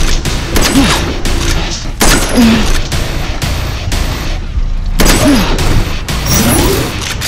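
Rapid volleys of gunfire-like shots over background music.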